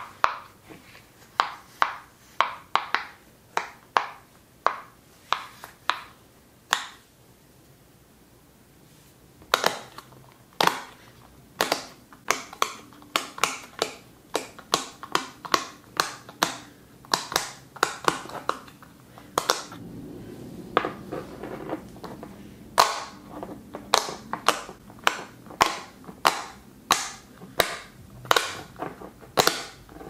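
Silicone pop-it fidget toy bubbles pressed in with fingertips, giving a run of sharp pops. There is a pause of about two seconds a quarter of the way through, and the popping comes faster after it.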